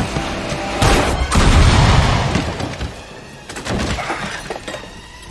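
A car crashing down onto a yacht's deck: a heavy impact about a second in, then a long spray of shattering glass and breaking debris that fades over a couple of seconds, with a few more crashes and clatters a little later.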